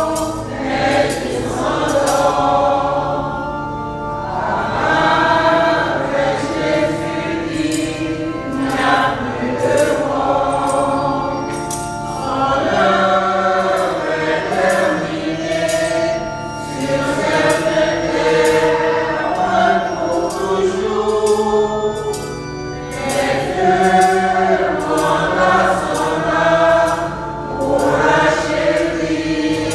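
Church choir singing a hymn, with many voices together.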